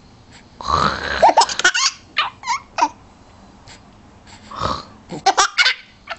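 A child imitating a man's snoring: a rough, rasping fake snore followed by bursts of giggling, twice.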